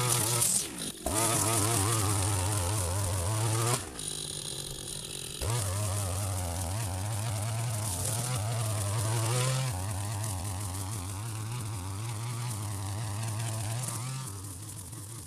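Strimmer engine running at high speed while cutting, easing off briefly about a second in and again for a second or so around four seconds in, then running steadily before dropping back near the end.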